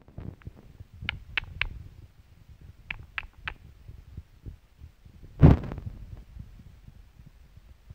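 Footsteps on the forest floor with low thumps of a handheld phone being moved, two quick runs of three short high chirps, and one louder crunch about five and a half seconds in.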